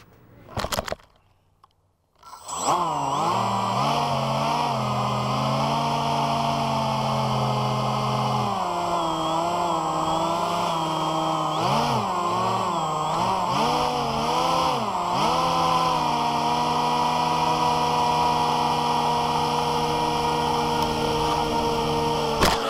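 Brushless electric motors of a foam RC hovercraft, a hover fan in the lift duct and an NTM 2826 1200 kV pusher propeller, spinning up about two seconds in and running with a steady whine. The pitch rises and falls several times with throttle changes, then holds steady over the last few seconds.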